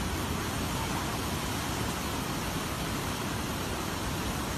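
Turbulent brown floodwater rushing and breaking in standing waves along a river bank, a steady, unbroken rushing noise.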